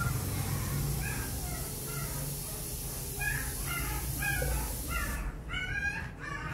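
A bird calling over and over in short pitched calls, about two to three a second, starting about a second in, over a steady low hum.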